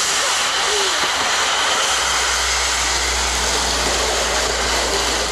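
Plastic sled sliding over packed snow close by: a steady rushing scrape.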